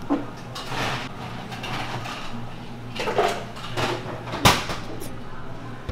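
Whipped cream being squeezed from a piping bag onto a waffle: several short noisy swishes over a steady low kitchen hum, with one sharp click about four and a half seconds in.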